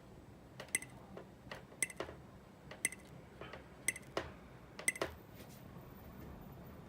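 Five sharp clicks about a second apart, with softer clicks and thumps between them, from an Alientek D8 amplifier being switched while it is checked for turn-on or switching pops through its speakers.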